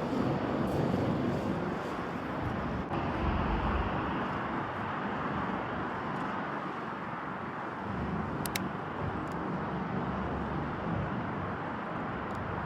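Steady road traffic rushing past, with gusts of strong wind buffeting the microphone in low, uneven rumbles.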